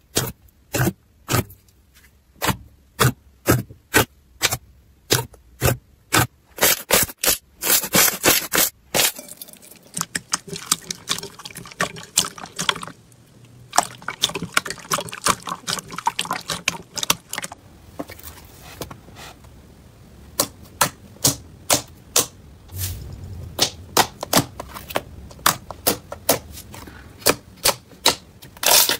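Hands squeezing and kneading slime: a run of sharp clicking pops with softer sticky, wet squelching in between. The pops come about two a second at first, crowd together into quick runs in the middle, thin out, then pick up again near the end.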